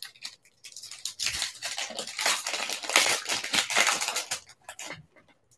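Foil trading-card pack wrapper crinkling and tearing as fingers pull it open, a dense crackle that starts about a second in and stops shortly before the end.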